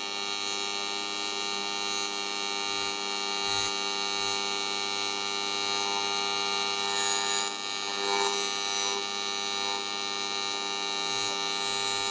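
Steady electric buzz and hum of a TIG welding arc, running evenly as the torch lays a bead.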